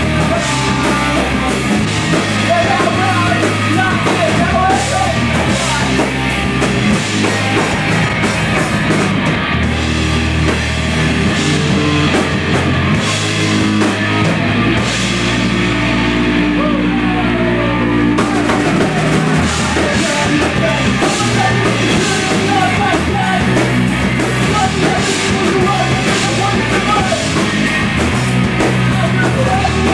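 Live punk rock band playing loud: distorted electric guitar, bass and drum kit. The high cymbal wash drops out for a few seconds about halfway through, then the full band comes back in.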